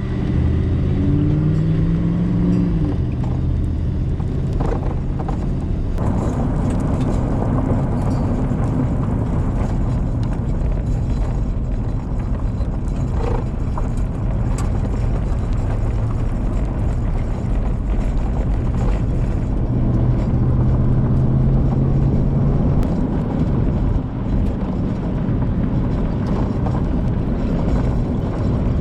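Car driving: steady engine and road noise, with the engine note rising briefly about a second in.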